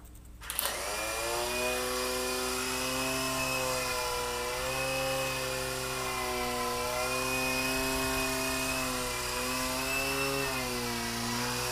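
Lite-Hawk XL RC toy helicopter's electric motors and rotors spinning up about half a second in, then a steady whine in flight, its pitch rising and falling slightly with the throttle.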